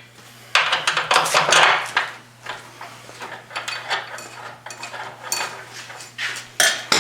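Irregular metal clanking and rattling as suspension parts are shifted and a bolt is worked into the axle's mounting, loudest and busiest in the first couple of seconds, with a sharp knock at the end.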